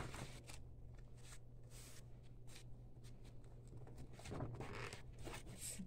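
Faint rustling and rubbing of paper as hands press and smooth glued newspaper cutouts onto a journal page, a little busier about four to five seconds in, over a steady low hum.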